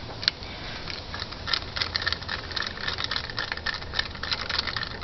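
Hand socket ratchet clicking rapidly and unevenly as bolts on a gear puller are cranked down tight, starting about a second in, over a low steady hum.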